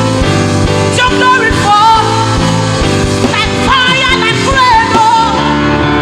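Live gospel worship music: a band playing with a steady beat while a singer holds and bends long notes.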